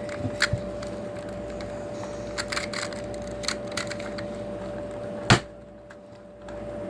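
Scattered plastic clicks of 2x2 puzzle cubes being handled and turned, with one sharp knock about five seconds in, over a faint steady hum.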